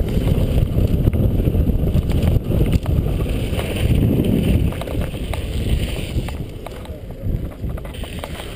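Wind buffeting a helmet-mounted camera's microphone, with mountain-bike tyres rolling over dirt and gravel and quick rattles and clicks from the bike. The noise eases off after about six seconds as the bike slows.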